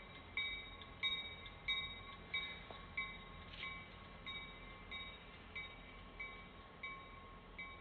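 Locomotive bell ringing steadily, about three strikes every two seconds, each strike a clear ringing tone. It fades throughout as the train moves away.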